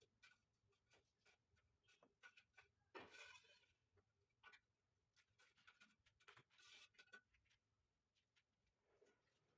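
Very faint scrapes and taps of a mason's steel trowel working mortar at a stair step's edge: scattered light ticks with two longer scrapes, about three and seven seconds in.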